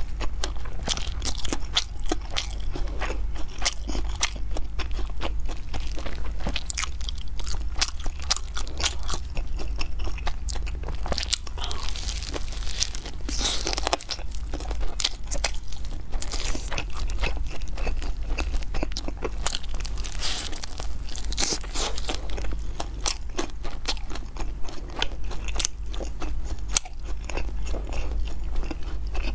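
Close-miked crunching and chewing of a crispy chicken wing, with many quick, irregular crackling bites. A steady low hum runs underneath.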